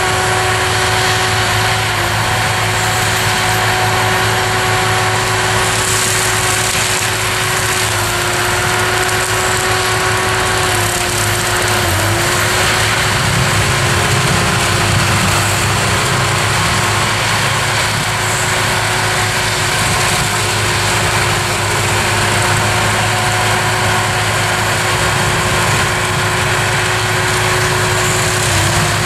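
Tractor engine under load driving a forestry mulcher that grinds poplar wood and stumps into the ground: a steady, loud machine drone with a whine that dips briefly in pitch three times.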